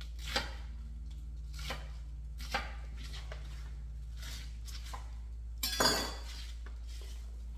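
Kitchen knife chopping through a head of cabbage onto a plastic cutting board: single chops about a second apart, with a louder, longer burst of cutting about six seconds in.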